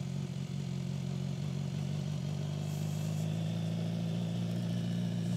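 BMW S1000XR's inline-four engine running steadily, one even note that holds without revving up or down.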